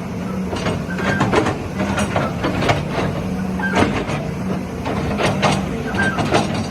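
A Volvo EC210BLC excavator's diesel engine runs steadily, with irregular metallic clanks and knocks and a few brief squeaks from the working machine.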